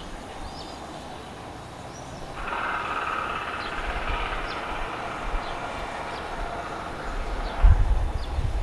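Open-air ambience: a steady noise that grows louder about two and a half seconds in, a few faint high chirps, and low rumbling gusts of wind on the microphone near the end.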